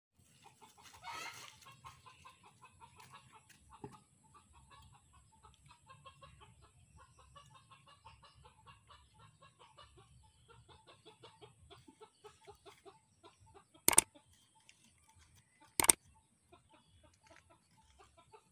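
Domestic chickens clucking faintly, in many short calls. Two sharp clicks, about two seconds apart, come near the end.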